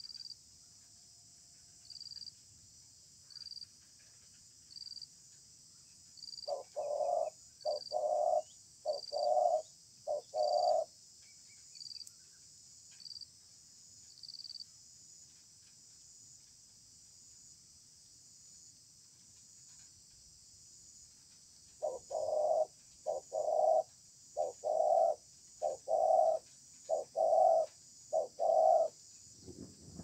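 Spotted dove cooing: two bouts of repeated low, hollow coo notes, a shorter phrase about a quarter of the way in and a longer run of about nine notes near the end. A steady high insect buzz runs underneath.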